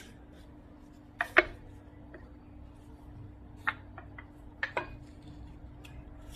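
Wooden rolling pin clicking and knocking against a floured wooden board as dough is rolled out: a double knock about a second and a half in, the loudest, and a cluster of lighter clicks around four to five seconds in, over a faint steady hum.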